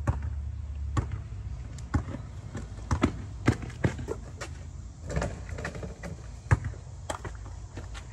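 A basketball bouncing on an outdoor court and slapping into players' hands in a run of irregular sharp thuds, with a steady low rumble underneath.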